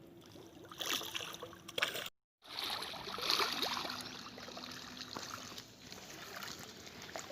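Water splashing and sloshing in uneven bursts, the sound cutting out completely for a moment about two seconds in.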